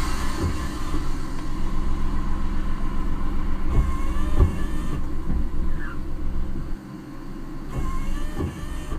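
Car cabin noise while driving: a steady low rumble of tyres and engine, with a few short thumps and a brief dip in level near the end.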